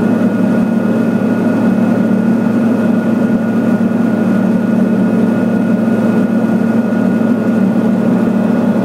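Pilatus PC-12's single PT6A turboprop engine and propeller in cruise, heard from inside the aircraft as a loud, steady drone with a thin steady whine above it.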